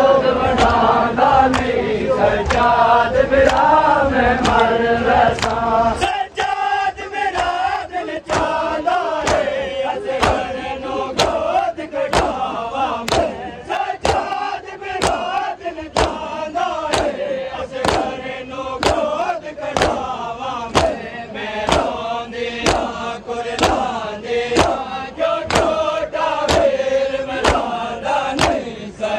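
Crowd of mourners performing matam: open hands slapping bare chests in unison, a steady rhythm of sharp slaps, over men's voices chanting a noha (Shia lament).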